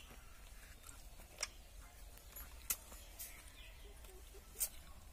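Quiet outdoor ambience: a steady low rumble with three sharp, light clicks, one about a second and a half in, one near the middle and one near the end.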